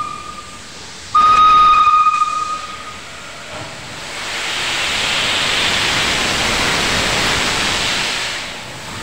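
Steam locomotive whistle: one steady note that cuts off at the start, then a second short blast about a second in. From about four seconds in, the locomotive vents steam with a loud, even hiss for some four seconds.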